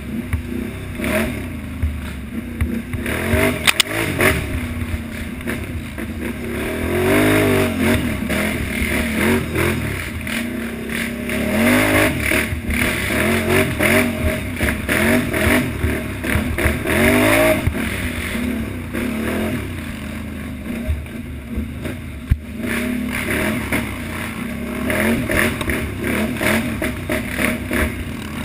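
Utility ATV engine under hard riding, the revs climbing and dropping again and again as the throttle is worked along a rough trail.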